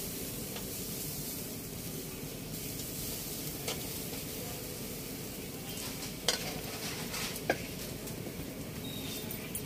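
Salmon fillets sizzling steadily on a wire grill over charcoal. A few sharp clicks come from metal tongs on the grate, the loudest about six seconds in.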